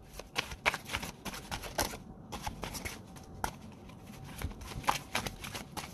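A deck of tarot cards being shuffled and handled: an irregular run of short, crisp flicks and taps.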